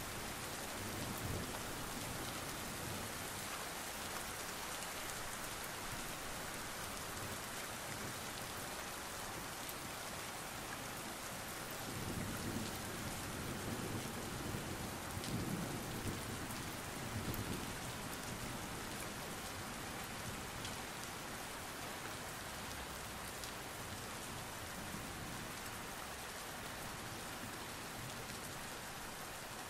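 Steady rain falling on hard surfaces, with a low rumble that swells for several seconds in the middle.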